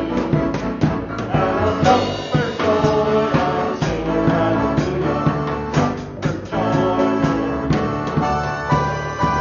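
Live church worship band playing an upbeat praise song, with voices singing and drums keeping the beat.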